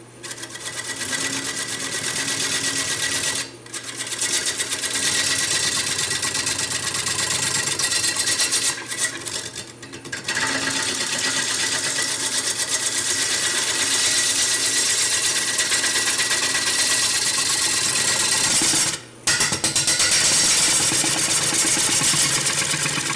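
A 3/4 inch bowl gouge cutting across the face of a large spinning Jatoba (Brazilian cherry) disc on a wood lathe, flattening its underside. The cut makes a loud, steady scraping with a fast, even rhythm, and stops briefly three times as the tool is lifted off and set back on.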